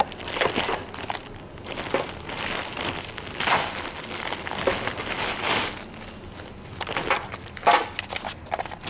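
Plastic packaging crinkling and rustling in irregular bursts as items are handled close to the microphone.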